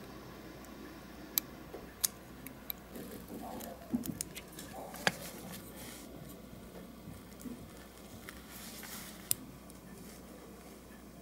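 Small metal hand tools and fingers handling the metal base of a diecast Matchbox Field Car model: several sharp, light clicks of tool or part on metal, scattered singly, with soft rubbing and handling noise between.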